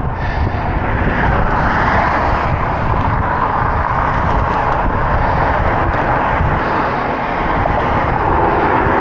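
Steady traffic noise from passing motor vehicles heard from a moving bicycle, with an uneven low rumble of wind on the microphone.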